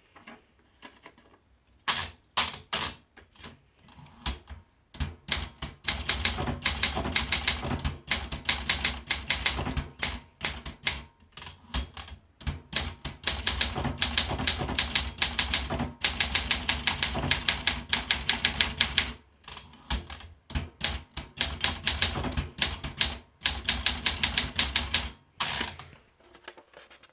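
Olympia SM8 manual portable typewriter being typed on: a few scattered keystrokes at first, then long fast runs of key strikes broken by short pauses.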